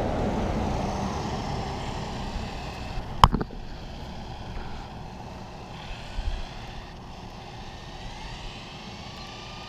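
Mugen MGT7eco electric RC truggy running flat out on asphalt, heard from a camera mounted on it: a steady rush of tyre, drivetrain and wind noise, loudest at the start and easing off. There is one sharp knock about three seconds in, and a faint rising whine near the end.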